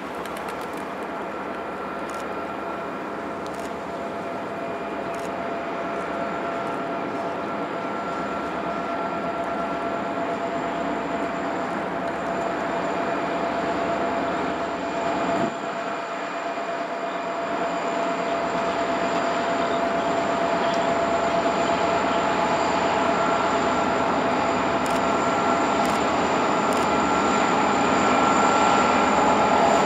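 A Montana Rail Link freight train passing at low speed: the diesel locomotives go by, then the freight cars roll past. A steady high whine rides over the rolling noise, and the sound grows louder toward the end.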